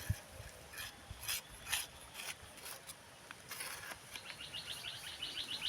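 Scattered brief rustling and scuffing noises, then from about four seconds in a bird's rapid run of short high chirps, about nine or ten a second.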